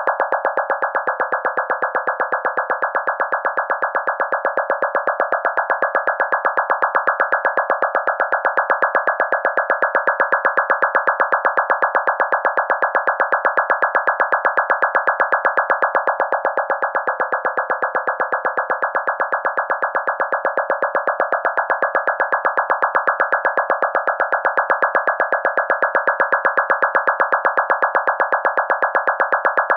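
Synthesizer playing a MIDI piano roll whose notes are laid out to draw a picture of a cat: a dense cluster of many notes sounding at once, repeating as rapid, even pulses.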